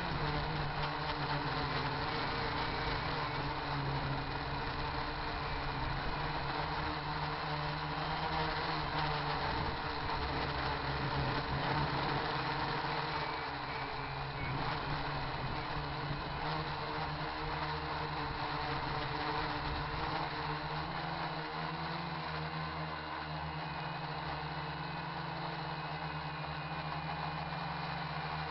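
RC quadcopter's electric motors and propellers running with a steady hum, with wind rumbling and buffeting on the microphone. The low wind rumble eases about three-quarters of the way through.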